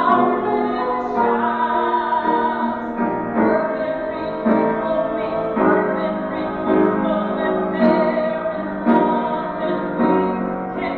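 A woman singing a musical-theatre song over piano accompaniment, with chords struck roughly once a second.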